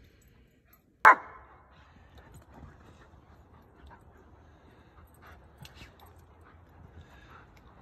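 A dog barks once, loudly, about a second in, then faint sounds of dogs playing.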